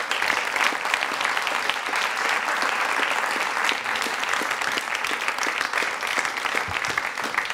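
Audience applauding, steady dense clapping throughout.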